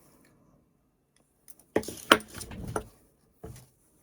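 Stiff 16-gauge steel rebar tie wire clinking and rattling as it is handled on a metal ring sizer: a cluster of sharp metallic clinks from about a second and a half in, and one more short clink near the end.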